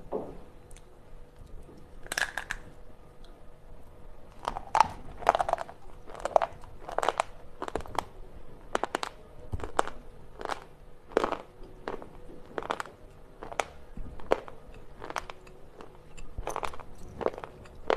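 Slate pencils being bitten and chewed close to the microphone: a long series of sharp, dry crunches, one at about two seconds in and then coming roughly once a second.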